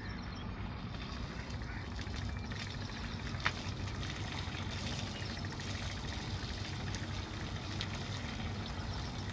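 Steady outdoor background noise with a low hum, and a single sharp click about three and a half seconds in.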